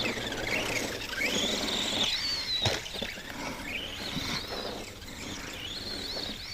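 Arrma Granite RC monster truck's electric motor and gears whining as it drives, the pitch rising and falling with the throttle. A single knock about two and a half seconds in.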